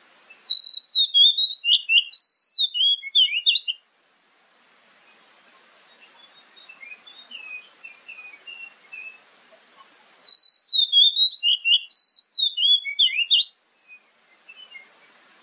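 Oriental magpie-robin singing: a loud phrase of quick, varied whistled notes lasting about three seconds, then the same phrase again about ten seconds in. Between the two, fainter birdsong can be heard.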